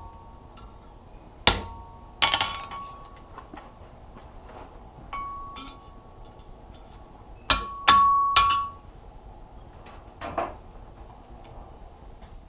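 Blacksmith's hammer striking steel on the anvil: about seven sharp, irregularly spaced blows, several of them ringing on briefly after the strike.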